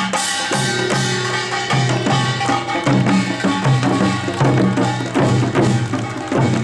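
Korean pungmul (nongak) percussion ensemble playing: drums beat a dense rhythm under held ringing metal tones.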